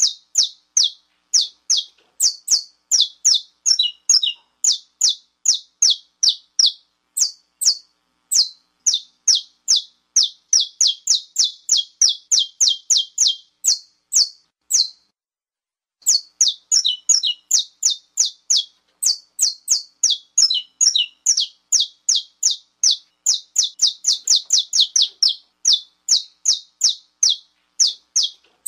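Saffron finch (canário-da-terra) giving its 'estalo' call: long runs of sharp, high, clipped notes, several a second, with a pause of about a second midway. It is the excited call that keepers play to rouse and fire up male saffron finches.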